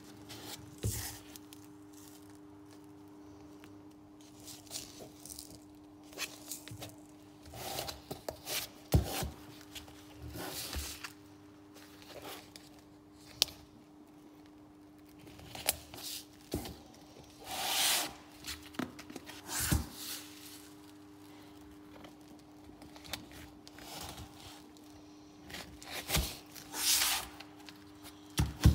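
Plastic tubs with snap-on lids and carry handles being handled on a table: lifted, tilted, touched and set down, giving irregular scrapes and rustles with a few sharp knocks. A faint steady hum runs underneath.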